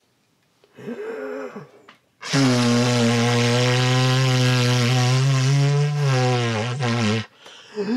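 A person's voice holding one long, low, buzzy note for about five seconds, starting a little over two seconds in and breaking off near the end, after a short, faint wavering vocal sound about a second in.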